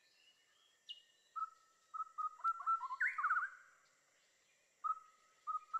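Birds chirping and whistling in short repeated notes and quick downward-sliding calls, with a fast run of notes about three seconds in.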